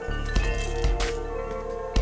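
Background music with a steady beat over sustained tones.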